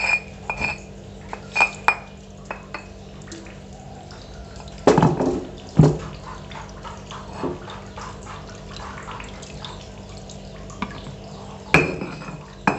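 Kitchen utensil clinks and scrapes as ground spice paste is scraped from a stone mortar into a metal wok: a few ringing clinks at first, then two louder knocks about five seconds in, scattered lighter taps, and another sharp knock near the end.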